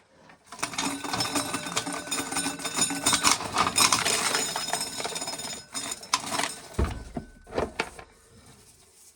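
Corn sheller stripping dry ear corn, a dense rattle of kernels for about five seconds, then a few scattered knocks and a low thump.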